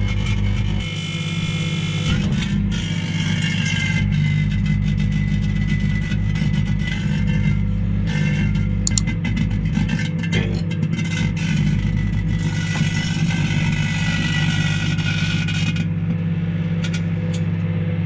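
Microwave oven running with a steady low electrical hum while a disposable butane lighter burns inside it, crackling and popping with frequent sharp clicks over a hiss. The hiss and crackle fall away near the end as the flame dies and the melted lighter smokes.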